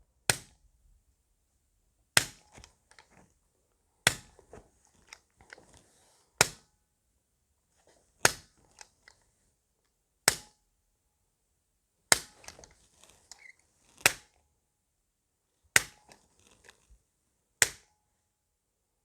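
Activator chiropractic adjusting instrument firing against the thoracic spine: about ten sharp clicks, one roughly every two seconds, with fainter ticks and handling noise between them.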